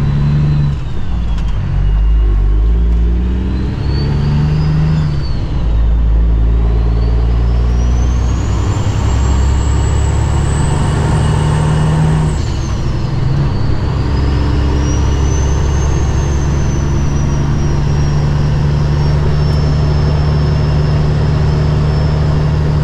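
Cummins ISX diesel of a 2008 Kenworth W900L pulling through the gears, heard from inside the cab. The engine note climbs and drops with several gear changes in the first few seconds. A high whine rises and falls off sharply at another shift about twelve seconds in, then the engine settles into a steady pull.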